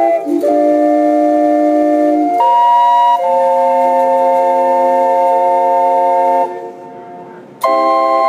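The American Queen's steam calliope, its brass steam whistles playing long held chords that change every second or so. Near the end the chord drops away for about a second before the next one sounds.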